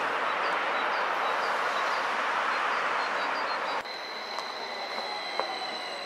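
A steady rushing noise cuts off abruptly. Then a BLS double-deck electric train's motor whine sits under a steady high tone, with several tones falling slowly in pitch as the train slows, and a single click.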